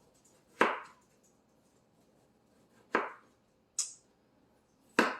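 Kitchen knife chopping through a canary melon: three sharp chops about two seconds apart, with a lighter, higher click between the second and third.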